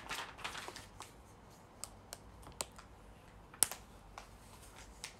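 Faint handling noise: paper rustling at first, then a few scattered small clicks, the sharpest about three and a half seconds in, as a paper instruction booklet and plastic bags of LEGO pieces are handled.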